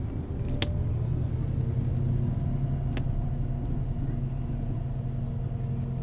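Rail replacement bus driving, heard from inside the cabin: a steady low drone of engine and road noise, with two sharp clicks about two and a half seconds apart.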